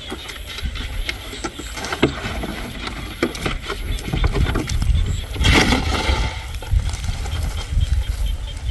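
Wind rumbling on the microphone, with scattered clicks and knocks as a large plastic jug and a sack are handled on dry ground, and a short rush of noise about five and a half seconds in.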